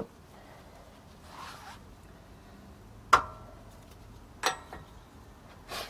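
Metal parts being handled: a light scrape, then two sharp metallic clanks about a second and a half apart, each with a brief ring.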